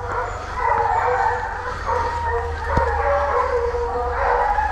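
A pack of four running hounds giving tongue on the trail of wild boar: several dogs baying and howling over one another without a break.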